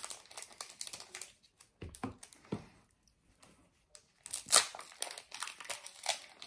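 Foil Pokémon booster pack wrappers crinkling as they are handled, in scattered rustles. There is a short pause in the middle, and the loudest crinkling comes about four and a half seconds in.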